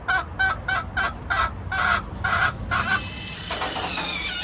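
Hen cackling: a quick series of clucks, about two to three a second, then, about three seconds in, one long drawn-out squawk that falls in pitch near the end.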